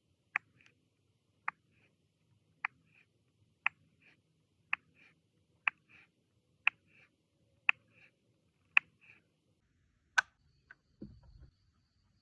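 A steady series of sharp taps or clicks, about one a second, each followed by a softer tick, then a louder click and a short low thud near the end.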